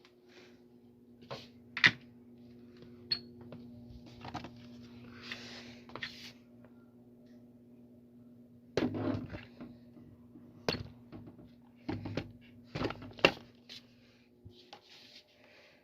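Plastic parts of an electric fan clicking and knocking as they are handled and fitted together, about a dozen sharp knocks, most of them bunched in the second half. A steady low hum runs underneath.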